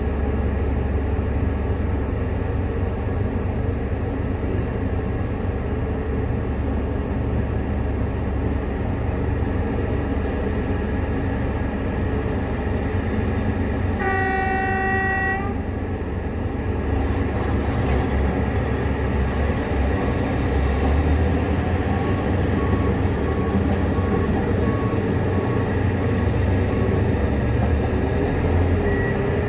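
Large mining diesels of a Liebherr 9400 excavator and a Cat 785C haul truck running steadily. About halfway through there is one horn blast lasting about a second and a half, as the truck's loading ends. The engine noise grows a little louder in the second half as the loaded truck pulls away, with faint repeated beeping.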